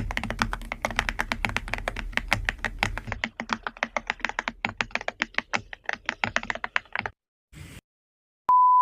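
Typing on a computer keyboard: a quick, uneven run of key clicks for about seven seconds that stops abruptly. Near the end a steady, high beep begins.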